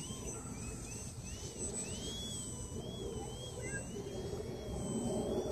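Electric motor and propeller of a Twisted Hobbys Extra Slick foam aerobatic RC plane whining in flight. The high whine swoops up and down in quick arcs as the throttle is worked, then holds nearly steady toward the end.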